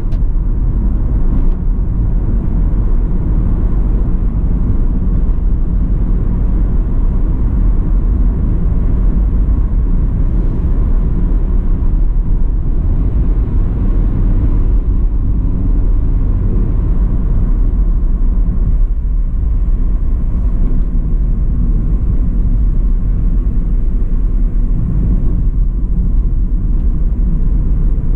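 Steady tyre and road noise with low engine rumble inside a moving car's cabin.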